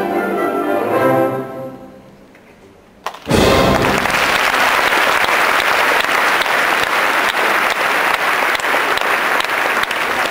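Orchestra playing ballet music, fading out about two seconds in. After a short lull, audience applause breaks out suddenly about three seconds in and keeps going.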